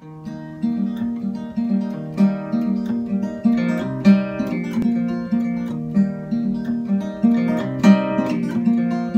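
Solo acoustic guitar, capoed, playing a folk song's instrumental introduction: a steady, repeating pattern of plucked notes and chords ringing over one another.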